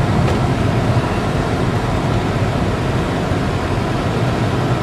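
Steady cabin noise of a car being driven: engine and tyres on the road, heard from inside the car.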